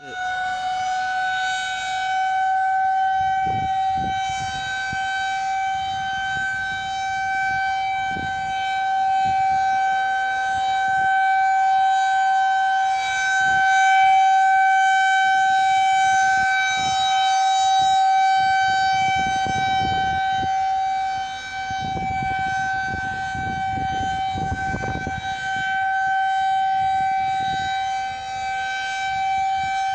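Civil defense tornado warning siren on its scheduled test: it winds up in pitch at the start, then holds one steady wailing tone that swells and fades in loudness every few seconds.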